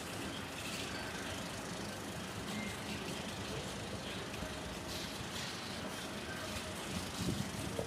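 Generator engine running steadily with a continuous low hum, with a few faint clinks from work nearby now and then.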